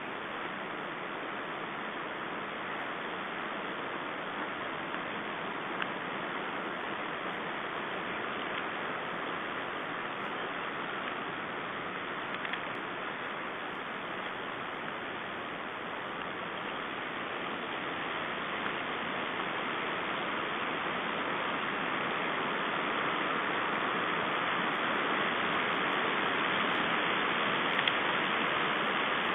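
Steady hiss of noise, slowly growing louder over the last third.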